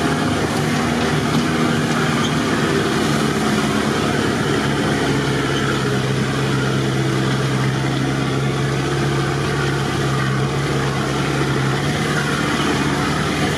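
Off-road 4x4 engine running steadily as it drives through a flooded, muddy track, heard from inside the vehicle. Its low drone gets stronger for several seconds in the middle.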